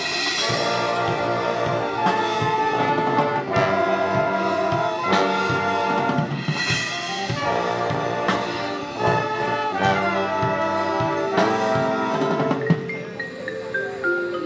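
Marching band brass (trumpets, mellophones, trombones and sousaphones) playing a full, loud passage, with accented chord hits about every one and a half seconds. Near the end, a quick run of notes steps downward.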